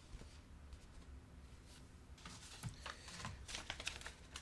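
Faint handling noise: light clicks and soft rustling of small plastic and paper accessories being picked up and sorted by hand, mostly in the second half.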